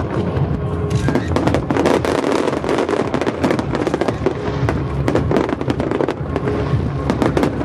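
Dense fireworks barrage: a rapid, continuous run of bangs and crackles from many shells bursting at once, with music playing underneath.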